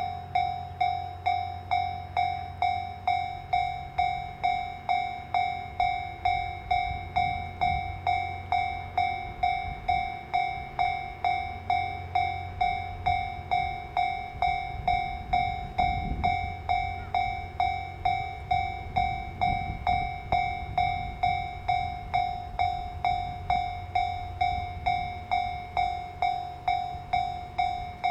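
Japanese level-crossing warning bell ringing in a steady rhythm of about two strikes a second. Beneath it is a low train rumble that is heaviest about halfway through.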